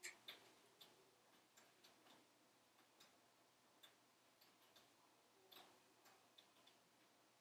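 Faint, irregular crackles and snaps of logs burning in a wood stove, scattered small pops with the loudest ones right at the start and about five and a half seconds in.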